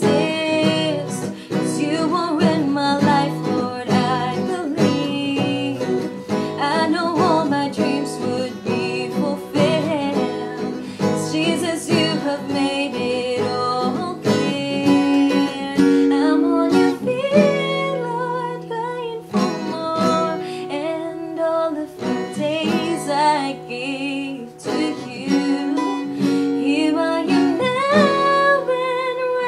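A song sung with strummed acoustic guitar.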